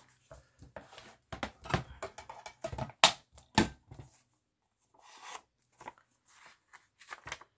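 A loose book page being handled and moved across a plastic paper-trimmer board: rustles and light taps, with two sharper snaps about three seconds in.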